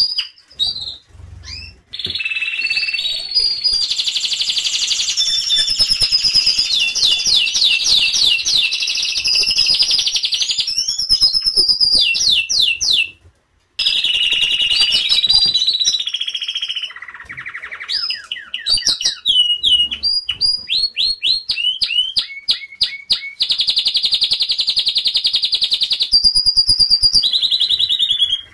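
Domestic canary singing a long song of rapid trills and rolls, switching to a new repeated phrase every second or two. The song breaks off for a moment about halfway through.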